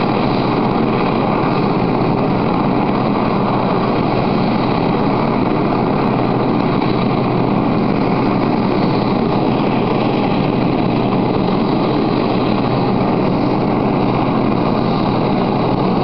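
Search-and-rescue helicopter running steadily on the ground: an unbroken engine and rotor noise with a faint high turbine whine.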